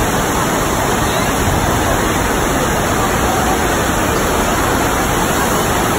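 Steady, loud rush of water pumped in a thin sheet up the slope of an indoor sheet-wave surf simulator.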